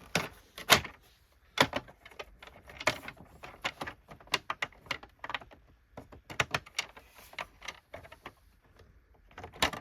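Irregular sharp clicks and knocks of hard plastic parts of a Hoover WindTunnel vacuum being worked and pressed into place during reassembly.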